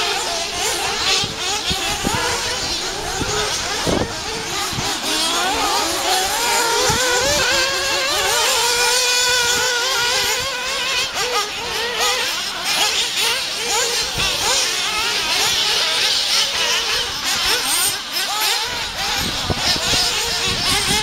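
Several radio-controlled off-road buggies racing, their small motors revving up and down in overlapping high-pitched whines.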